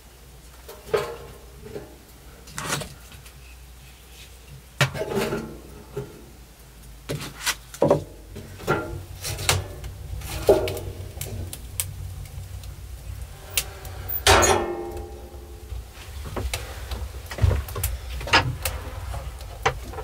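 Irregular knocks and clatters of split firewood and kindling being handled and loaded into a small steel wood stove, with a longer scraping sound about fourteen seconds in.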